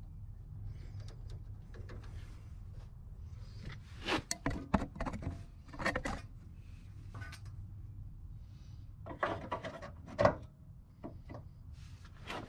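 Handling noise from hands, parts and tools: scattered knocks, clicks and rubs in small clusters, the sharpest knock about ten seconds in, over a steady low hum.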